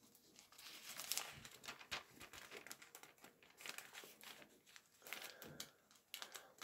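Thin Bible pages being turned and handled: soft papery crinkling and rustling in repeated short bursts.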